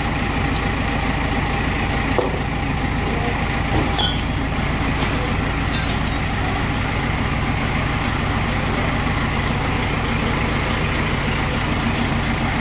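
A steady low hum and hiss of running machinery that does not change, with a few faint clicks.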